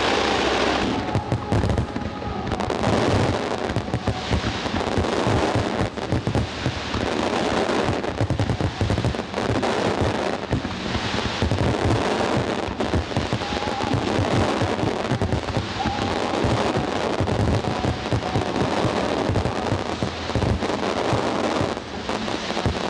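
Fireworks display: a dense, continuous barrage of aerial shell bursts and crackling, with bangs coming many times a second and no let-up.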